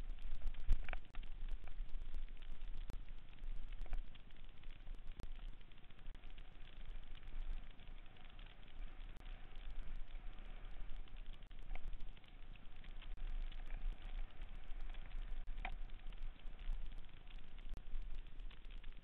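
Mountain bike descending a dirt singletrack at speed, picked up by a camera riding along: a constant rumble of tyres and jolts with low buffeting, broken by many irregular sharp clicks and rattles as the bike rides over roots and rocks, with a harder knock about a second in.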